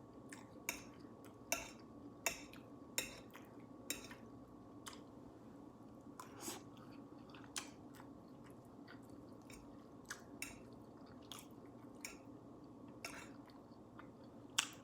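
Close-miked chewing and mouth clicks of a person eating. The wet clicks come about every three quarters of a second at first, then more sparsely, with one louder click near the end, over a faint steady hum.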